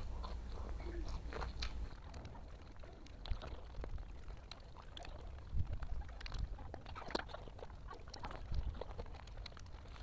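A man chewing a mouthful of rice and jengkol balado, with wet mouth sounds and scattered small clicks as he eats by hand.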